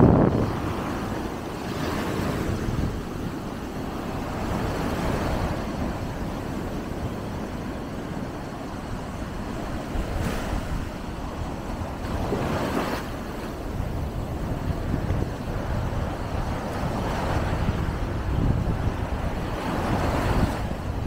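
Small surf breaking and washing up a sandy beach in a continuous hiss that surges every few seconds as each wave comes in, with wind rumbling on the microphone.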